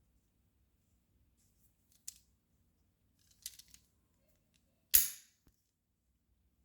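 Small metal clicks from handling the action of a 1:2 scale miniature Colt 1911 model pistol: a single click about two seconds in, a short run of clicks a second later, then one sharp, loud snap about five seconds in.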